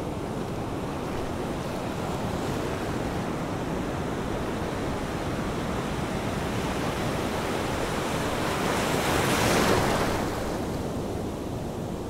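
Wind buffeting the microphone, a steady rush of noise that swells into a louder gust about nine seconds in.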